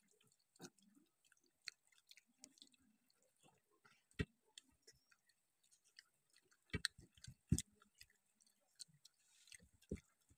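Faint eating sounds: quiet chewing and scattered small mouth clicks and smacks as two people eat rice by hand, with a few louder clicks about four and seven seconds in.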